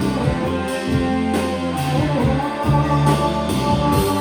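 A rock band playing live between sung lines, led by guitar over bass and drums.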